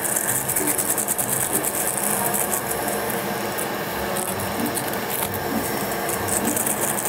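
A pot of sinigang broth at a hard boil on a gas burner: a steady, rapid crackling clatter. Over it, a packet of sinigang mix crinkles as it is shaken and squeezed empty over the pot.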